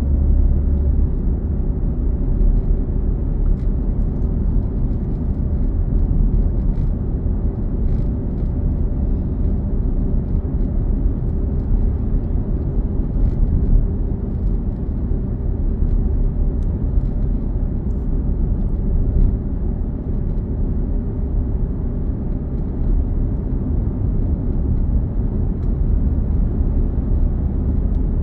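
Steady low rumble of a car driving at an even speed, heard from inside the cabin: engine and tyre noise on the road.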